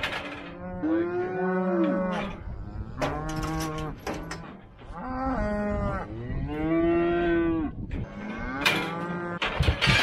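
A calf bawling in about five long, loud calls, each rising and falling in pitch. Near the end come a few sharp metal clanks from the squeeze chute as the headgate is opened to let the calf out.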